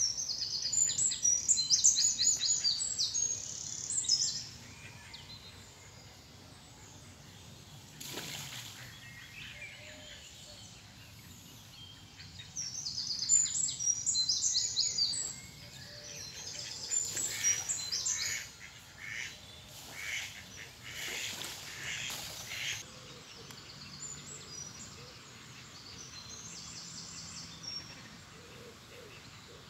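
Outdoor birdsong: a small songbird sings in repeated bursts of fast, high trills, and a few brief rushing noises come in between. Mallards are present and may add faint calls underneath.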